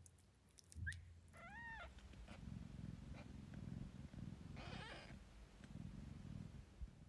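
Faint cat purring among newborn Devon Rex kittens, with two short high-pitched kitten mews, one about a second and a half in and another near five seconds.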